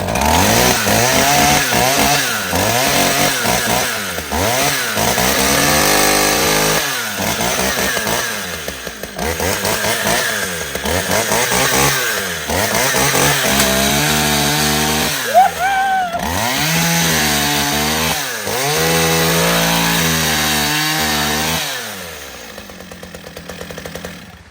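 Makita DCS 341 two-stroke chainsaw running, revved up and dropped back over and over. Near the end it settles to a lower idle and then shuts off.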